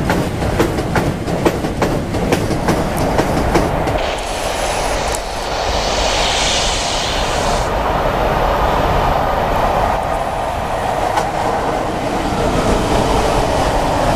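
Freight train of car-carrier wagons rolling past close by, its wheels clicking rapidly over the rail joints. About four seconds in, the sound changes to a second freight train, an electric locomotive hauling open wagons, passing with a brief hiss and then a steady rumble of wheels on rail.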